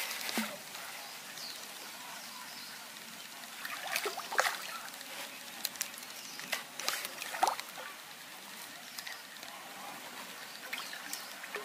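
Small splashes and sloshing at the pond surface as a hooked fish thrashes on the line, a few short bursts about 4 and 7 seconds in, over a faint steady outdoor hiss.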